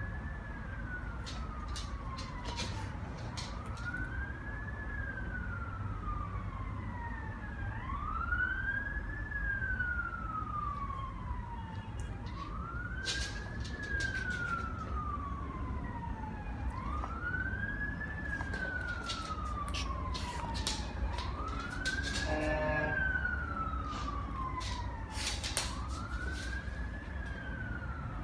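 A siren wailing in a slow, very regular cycle, each wail rising quickly and falling slowly, about every four seconds, over a low steady rumble. Scattered sharp clicks come through on top.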